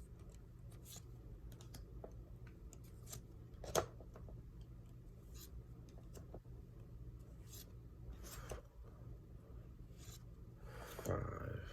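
Yu-Gi-Oh trading cards handled and flipped through from an opened booster pack: faint rustles and light clicks, a sharper snap about four seconds in and a louder rustle near the end.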